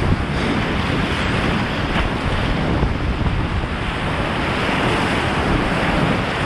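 Steady, loud rush of a whitewater rapid heard from the cockpit of a kayak as it runs through the waves and foam.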